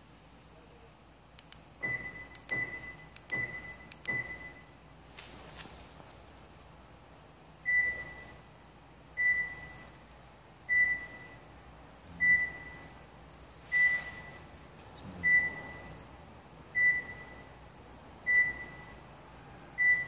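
X-Link 300L car alarm's piezo buzzer in its parking-location alert. First come four quick clicks, each with a short beep, as the smart key's lock button is pressed four times. From about eight seconds in, the buzzer beeps at one steady pitch about every second and a half, nine times, in step with the blinking hazard lights.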